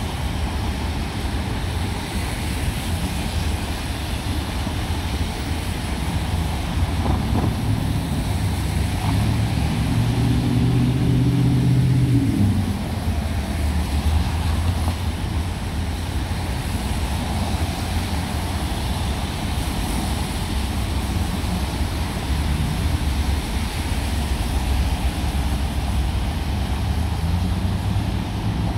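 City street traffic on rain-wet pavement: a steady rumble of engines and tyre noise. About ten seconds in, one vehicle's engine hum grows louder, then stops short a couple of seconds later.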